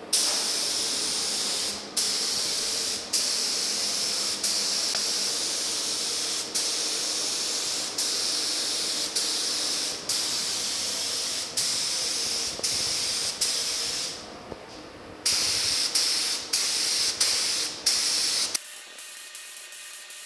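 Compressed-air gravity-feed paint spray gun hissing as blue base coat goes onto a truck's splash apron, in many passes that each start and stop abruptly. There is a short pause about fourteen seconds in, and the spraying stops shortly before the end.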